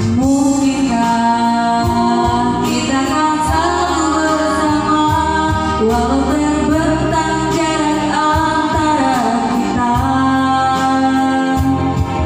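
A song: a singer carries a wavering melody over instrumental backing.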